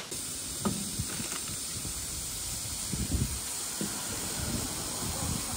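Steady hiss of a steaming stainless-steel soup urn, with a few soft knocks as a ladle works in the pot.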